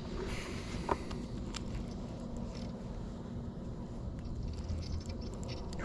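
Quiet outdoor background: a steady low rumble, with faint scattered ticks and one short high note about a second in.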